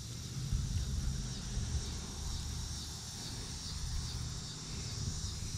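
Insects, crickets or similar, chirring steadily in a high, even drone, over a constant low rumble on the microphone.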